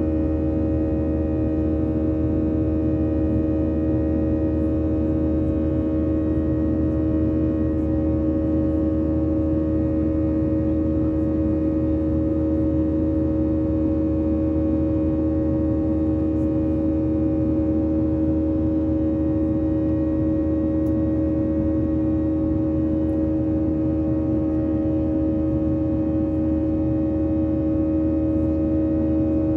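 Steady cabin drone inside a Boeing 737-8 by a window seat: a low rumble with a steady multi-tone hum from the aircraft's engines and systems, holding level with no spool-up.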